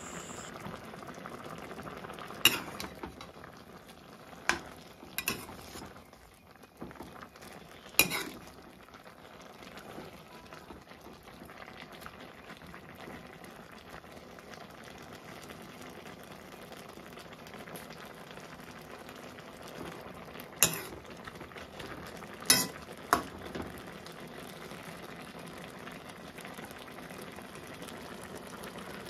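Broth simmering in a metal wok on a gas burner, bubbling steadily. A metal ladle stirring it clinks sharply against the pan several times in the first eight seconds and three more times about 21 to 23 seconds in.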